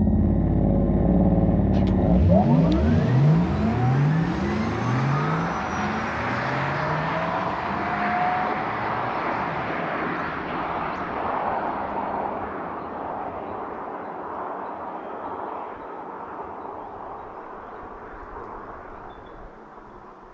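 Porsche Taycan 4 Cross Turismo's electric motors accelerating hard: several high whines rising in pitch about two seconds in, over a wash of tyre and wind noise. The noise fades slowly over the following seconds.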